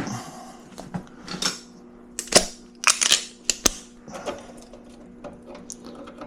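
Handling of wires and small parts: a scatter of light clicks and rustles, busiest in the middle, over a faint steady hum.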